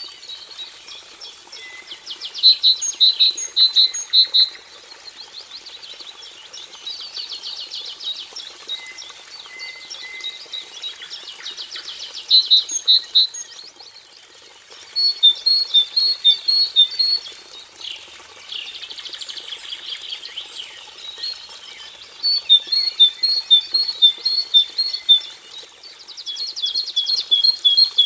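Cinereous tit (grey tit) singing: bouts of quick, loud, repeated whistled notes in several different phrase patterns, separated by softer buzzy chattering. A faint steady high-pitched tone runs underneath.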